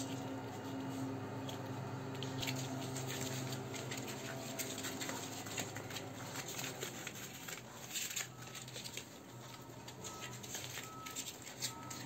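Puppies' paws and claws pattering and scratching on cardboard and a puppy training pad: many small quick clicks, starting about two seconds in, over a steady low hum.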